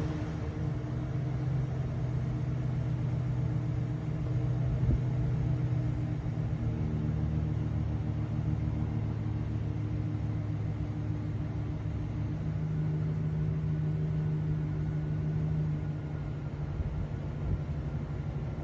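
Chevrolet Silverado pickup's engine idling steadily just after a start. Its idle note steps up about twelve seconds in and drops back a few seconds later.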